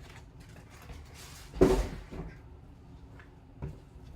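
A few light knocks and clicks of cards being handled on a tabletop, in a small room, with one short spoken word about one and a half seconds in.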